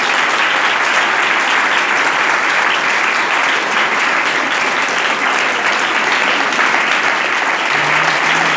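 A crowd applauding steadily, a dense run of clapping. A voice comes in near the end.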